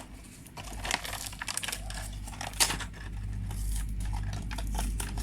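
Hot Wheels cardboard-and-plastic packaging being pried and torn open by hand: crinkling and tearing with scattered clicks and snaps, the sharpest about two and a half seconds in.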